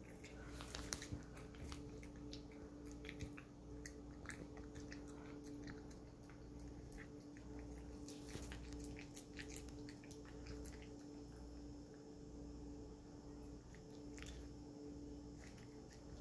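Hairless cat eating minced wet food from a plastic bowl: faint, irregular wet chewing and lapping clicks throughout. A steady low hum runs underneath.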